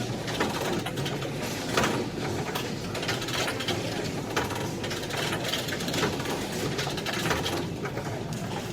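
Subway station turnstiles clicking and ratcheting at irregular moments as people push through, over a steady background hubbub of the station.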